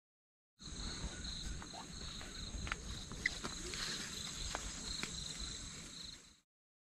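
Insects chirring steadily in a field, with high pulsing tones over a low rumble and a few sharp clicks. The sound cuts in and cuts off abruptly.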